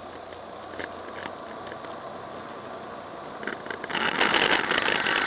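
Dashcam audio from inside a moving car: steady engine and road noise with a couple of faint clicks. About four seconds in, a loud, harsh rushing noise rises sharply and takes over.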